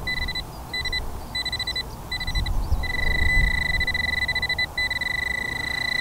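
Nokta Accupoint pinpointer beeping in short, rapid bursts as it is swept through the dug soil, then sounding an almost unbroken steady tone from about three seconds in: it is signalling a metal target close to the probe.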